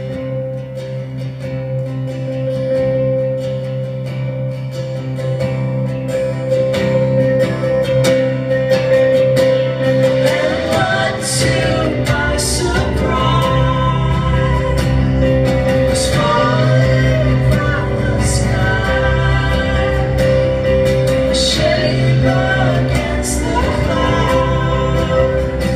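A live band playing a song: acoustic guitar and other instruments, with a woman singing. A deep bass part comes in about ten seconds in and the music grows fuller and louder.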